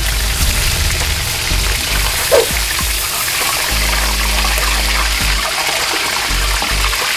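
Battered chicken pieces deep-frying in hot oil in a wok on their second fry, a steady sizzle, with one brief sound about two and a half seconds in. Background music plays underneath.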